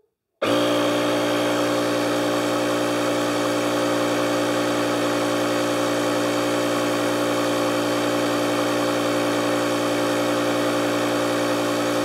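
Built-in 150 PSI tire-inflator air compressor of a LOKITHOR ApartX jump starter switching on about half a second in and running at a steady, unchanging pitch. It is a loud, even motor-and-pump hum.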